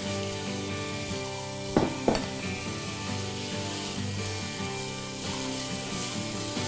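Diced onion, carrot and celery sizzling in olive oil in a stainless steel stock pot while being stirred with a silicone spatula, with two sharp knocks about two seconds in. Soft background music with sustained notes plays underneath.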